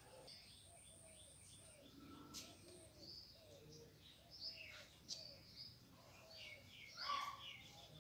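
Faint birds chirping, with short high calls scattered throughout and a sharp click about two and a half seconds in.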